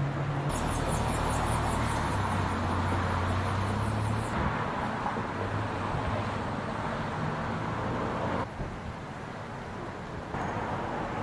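A car driving along the street: a steady low engine hum with tyre and road noise, easing off about two thirds of the way through and picking up again near the end. A high pulsing buzz sounds over it for the first few seconds.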